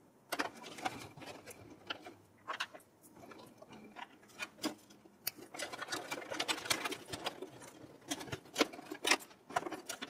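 SATA data and power cables being handled and plugged in inside a metal PC case: irregular clicks of plastic connectors and rustling of wires, busiest about six to seven seconds in.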